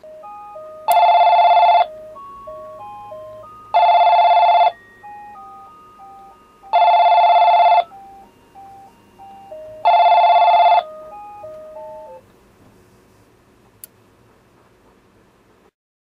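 An electronic telephone ringtone: four loud ringing bursts of about a second each, roughly three seconds apart, with a short tune of single beeping notes between them that ends about twelve seconds in.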